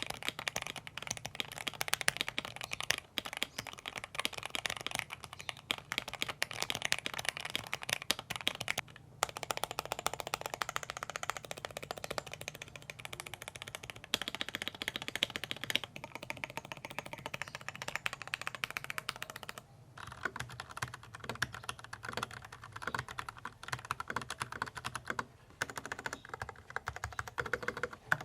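Typing demo on an Akko Mod 007 mechanical keyboard fitted with ePBT Sky Dolch cherry-profile PBT keycaps: a dense, continuous run of keystroke clacks, with a few short pauses.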